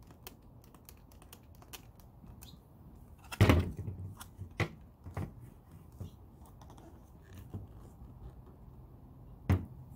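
Light clicks and knocks of a large hollow plastic Godzilla figure being handled. There is a louder thump about three and a half seconds in as it is set down on a table, and another sharp knock near the end.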